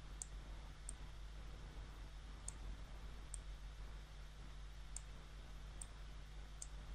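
Computer mouse clicking: about seven short, sharp clicks spaced unevenly, over a faint low steady hum.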